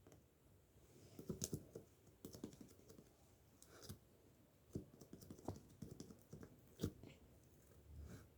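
Faint, irregular clicks and taps in small clusters, like keys or fingertips being tapped.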